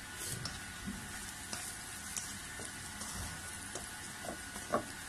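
Sliced vegetables sizzling in oil in a nonstick wok while being stirred, with scattered light scrapes and taps of the stirring spatula against the pan and one sharper tap near the end.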